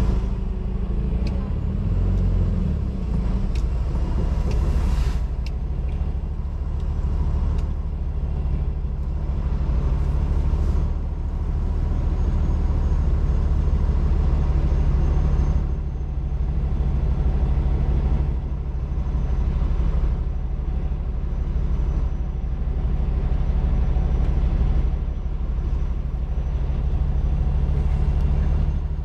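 Heavy-haul semi truck's diesel engine running steadily under load, pulling an oversize wind-tower trailer. The low drone shifts in pitch a few times, near three seconds in and again around twelve seconds.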